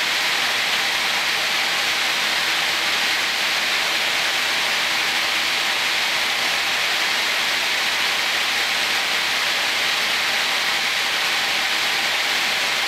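Okuma Multus B300 CNC lathe's main spindle running steadily at speed, a loud even whirring hiss with faint steady tones beneath it.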